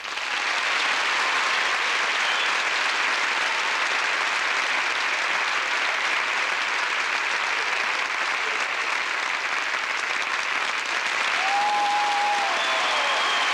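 Audience applauding steadily at the end of a song, with a short falling call rising above the clapping near the end.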